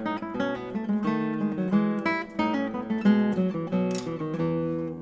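Background instrumental music on a plucked string instrument: a quick flow of notes in several voices at once.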